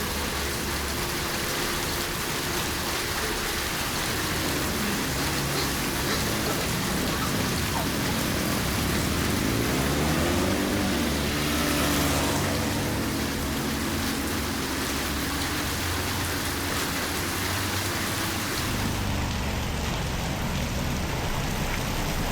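Steady heavy rain falling on a wet surface. About halfway through, a vehicle engine hum rises and falls in pitch as it passes.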